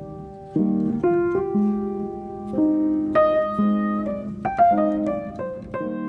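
Piano music: chords and single notes struck at an unhurried pace, with a quicker run of notes past the middle.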